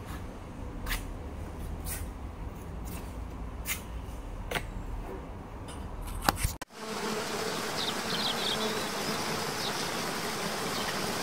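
Light clicks and taps while a handle is fitted to a drawer front, over a low steady hum, with two sharper clicks near the end of it. The sound then cuts off abruptly and is replaced by the steady rush of a waterfall.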